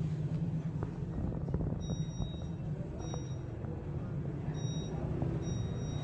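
Steady low rumble of background noise, with faint, short high-pitched beeps repeating on and off from about two seconds in.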